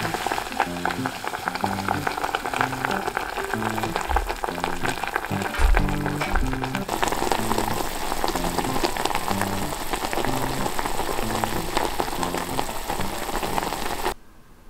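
Komatsuna greens and fried tofu strips sizzling and bubbling in a little liquid in a small pot, a dense crackling hiss. A low thud comes about six seconds in, background music notes run underneath, and the sizzle cuts off just before the end.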